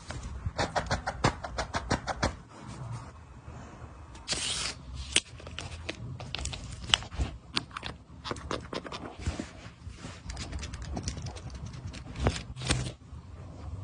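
Close-up clicks, taps and light scraping from skincare tools and products being handled, in quick runs, with a short hiss about four and a half seconds in.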